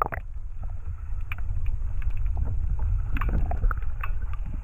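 Muffled rumble of water moving past an action camera held underwater in its waterproof housing, with scattered small knocks and ticks.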